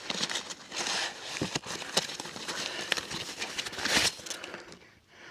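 Rustling and crinkling of packaging being handled, with many irregular clicks and a sharper click about four seconds in.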